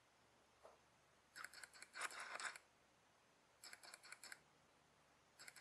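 Two short bursts of rapid small mechanical clicks as a camera lens is focused, about a second and a half in and again near four seconds, over near silence.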